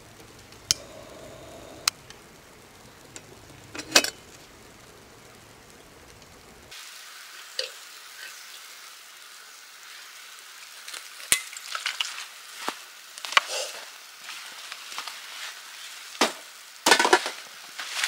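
Hurricane oil lantern being handled and burning: a few sharp metal clicks, then, after a cut, irregular crackling and sizzling that grows busier near the end.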